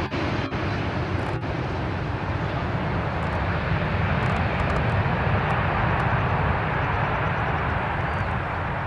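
Airbus A330-300 airliner's jet engines, a steady loud rumble as it rolls out along the runway just after touchdown.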